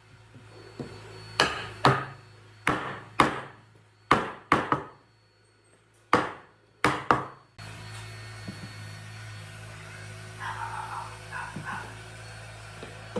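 About ten hard hammer blows on wood in uneven groups, each ringing briefly. A little past halfway they give way to a steady low hum.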